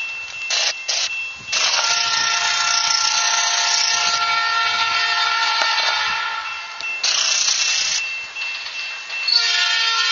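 SOO Line locomotive's out-of-tune Nathan P3 three-chime air horn blowing: one long blast starting about a second and a half in and lasting about five seconds, then another blast beginning near the end.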